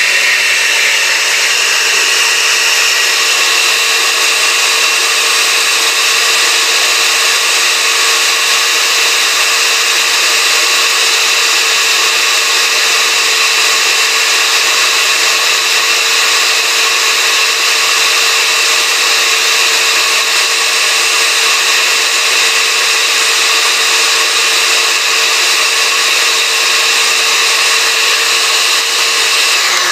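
Countertop blender motor running steadily, with a steady whine, pureeing cooked tomatoes, serrano chiles and garlic with oil into a salsa.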